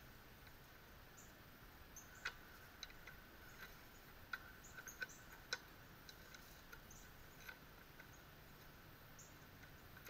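Quiet, scattered small clicks and taps of the steel knockout puller against the blower wheel hub as it is worked into line with the set screw, with faint high chirps in the background.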